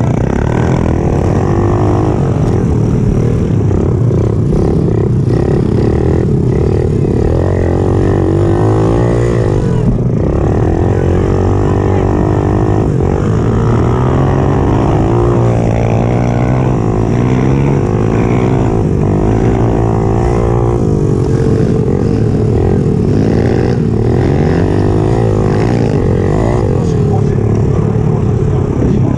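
Pit bike's small single-cylinder engine revving up and down as it is ridden around a dirt motocross track, heard close up from onboard. The pitch keeps rising on the throttle and dropping off into the corners.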